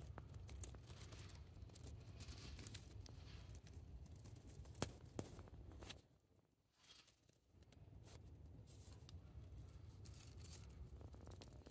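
Near silence: a faint low rumble with scattered small clicks and crackles, dropping out to almost nothing for a second or so around the middle.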